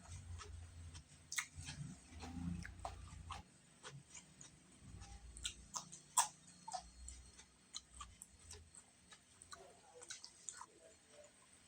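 Close-up eating sounds: chewing with irregular sharp wet clicks and smacks of the mouth, and some low muffled thuds.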